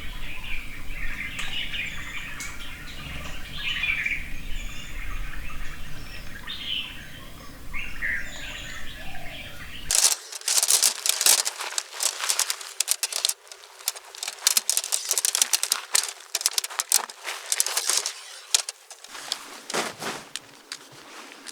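Small birds chirping over a low wind rumble; about ten seconds in, the sound cuts to a dense crackling rustle of dry leaves and twigs.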